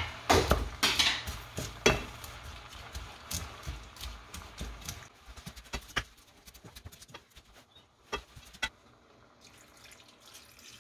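A wooden spatula stirring and tossing bean sprouts in sauce in a stainless steel pan, with quick knocks and scrapes against the pan, busy in the first half and sparser after about five seconds. Near the end, water is poured into the pan.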